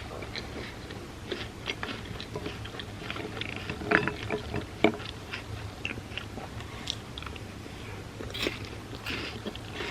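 Close-up chewing and crunching of chocolate hazelnut-cream wafer cereal in milk, a steady run of small crackles with two louder sharp crunches about four and five seconds in.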